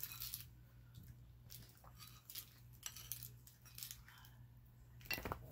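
Scattered light clicks and taps of food and a utensil being handled over a dish, with a louder knock near the end, over a steady low hum.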